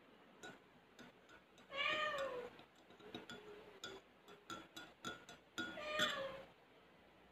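A cat meows twice, each call rising and falling in pitch, about two seconds in and again about four seconds later. Between the meows, a metal spoon clinks again and again against a glass mug as coffee is stirred.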